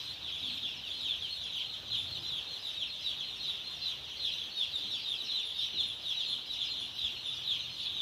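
Hundreds of day-old broiler chicks peeping together: a dense, continuous chorus of high-pitched, short falling cheeps.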